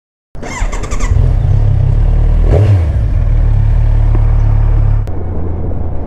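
Kawasaki Z1000 motorcycle's inline-four engine and wind noise while riding, revving with a quick sweep in pitch in the first second, then running steadily at speed. The sound changes abruptly and drops slightly about five seconds in.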